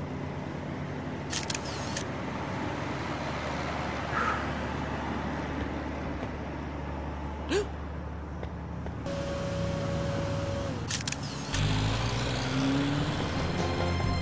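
Street-traffic rumble with a few light clicks and a brief chirp. Near the end a car engine comes in louder, its pitch rising.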